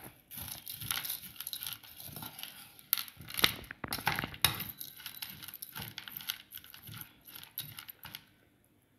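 Chanachur, the dry, crunchy fried snack mix, rattling and crackling as it is added to the mixing bowl, with a dense run of small clicks that stops about a second before the end.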